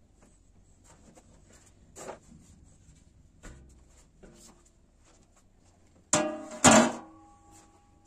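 A large round metal tray set down with two loud clanks about six seconds in, the metal ringing briefly afterwards; a few light knocks before it.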